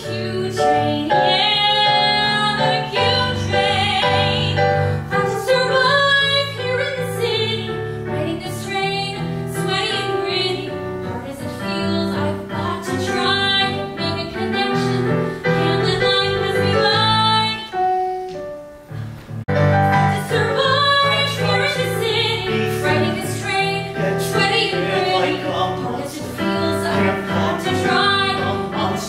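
A woman singing a musical-theatre song with live keyboard accompaniment, with a brief pause about two-thirds of the way through.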